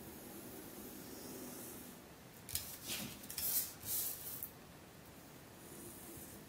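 Utility knife blade cutting through a paper pattern on a cutting mat, with the sheet rustling as it is turned: a few short scratchy strokes between about two and a half and four and a half seconds in, over a faint steady room hum.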